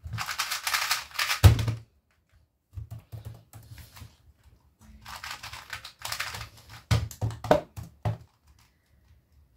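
A 2x2 speed cube clacking as its layers are turned fast through a solve of about a second and a half, ending in a sharp knock as it is put down. More bursts of clacking turns follow, with a few sharp knocks near the end.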